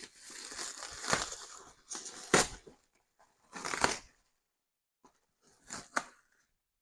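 Plastic packaging crinkling and rustling as bagged scenery material is handled, in a long stretch at first and then two shorter bursts.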